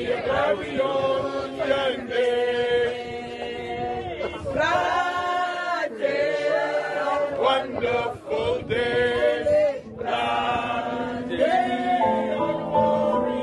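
A group of voices singing a slow hymn without accompaniment. Near the end, steady instrumental music comes in.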